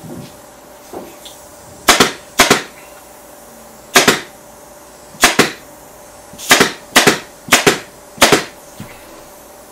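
Pneumatic upholstery staple gun firing staples one at a time through black dust-cover cloth into the seat frame: about ten sharp shots at irregular intervals, some in quick pairs, starting about two seconds in.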